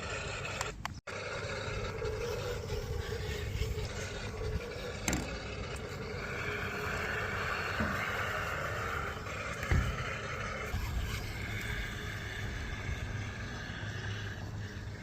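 Hot Wheels Tiger Shark RC monster truck's small electric motor whining steadily as it drives, with its tyres scraping over the ground. A couple of sharp knocks, about five and ten seconds in, the later one the loudest.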